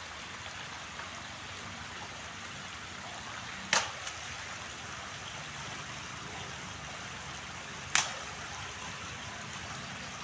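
Shallow water running steadily over a concrete spillway floor, with two sharp smacks about four seconds apart as a wooden stick is struck down into the water at fish.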